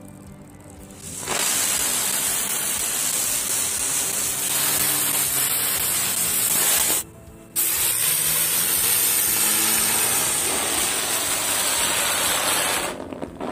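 Vanitha butterfly ground fireworks burning with a loud, steady spraying hiss as they throw sparks. The hiss starts about a second in, cuts out for about half a second about seven seconds in, then runs on until it fades out just before the end.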